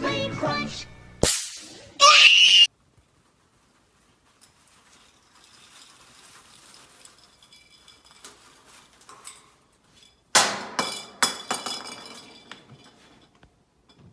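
The end of a sung jingle, then a sharp knock and a short loud cry with a rising pitch; later a loud clatter of several knocks and crashes, like objects falling and breaking.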